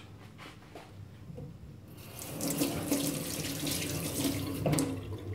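Tap water running into a kitchen sink, starting about two seconds in and running steadily, as the AnySharp knife sharpener is rinsed of the metal filings it has ground from the knives.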